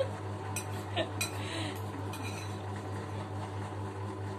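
Metal spoons clinking against ceramic bowls a few times in the first second and a half while eating noodle soup, over a steady low hum.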